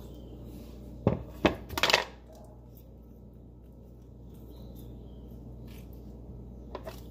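Plate clattering as it is handled and set down: three sharp clinks about a second in, then a fainter click near the end.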